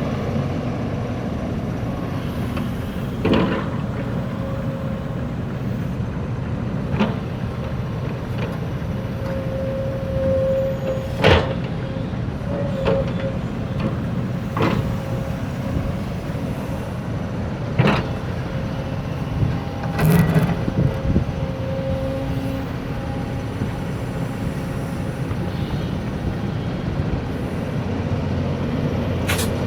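Backhoe's diesel engine running steadily under work, with sharp metallic clanks every few seconds and a thin steady whine for a while in the middle.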